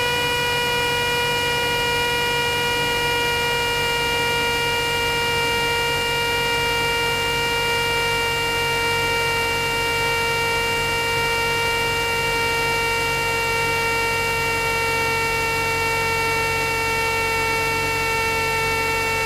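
Steady electrical whine in the Cessna's intercom audio: a single tone with its overtones, unbroken and drifting very slightly lower in pitch.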